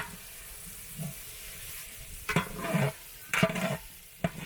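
Food sizzling in hot oil in a large cooking pot. It is stirred in several scraping strokes in the second half.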